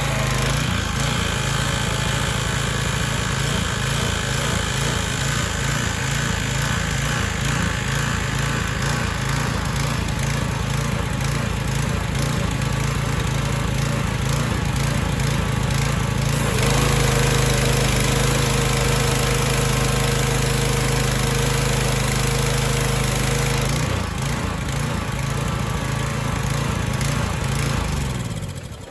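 Small gasoline engine of a Troy-Bilt 2800 psi pressure washer running steadily after a carburetor overhaul, running pretty good. Its note changes about two-thirds of the way through and again a few seconds later, then dies away near the end.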